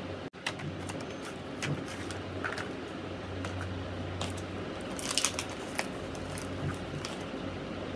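Steady low room hum, like a fan or air conditioner, with scattered small clicks and taps from objects being handled, a quick cluster of them about five seconds in. The sound cuts out for an instant just after the start.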